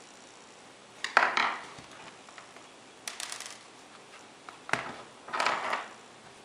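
Plastic netbook case and a small screwdriver handled on a hard tabletop: a sharp clack with a short rattle about a second in, a few light clicks in the middle, then a knock and a clatter as the netbook is turned over and set back down.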